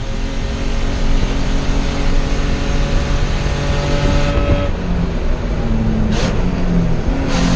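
BMW E30 inline-six race engine running hard at racing pace, heard from inside the stripped cabin, its revs stepping up and down through the corner. Two short hissy bursts come near the end.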